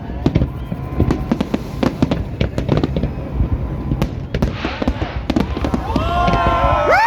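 Fireworks exploding in a rapid, continuous barrage of bangs and crackles. Near the end, long pitched voices call out over the fireworks.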